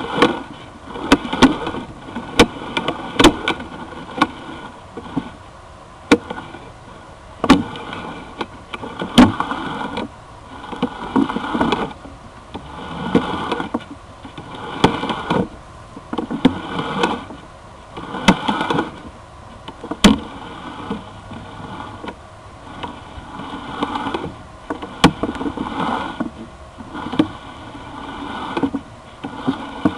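Sewer inspection camera's push cable being fed by hand down a drain line, in strokes about every two seconds, each a swell of scraping noise with sharp clicks and knocks.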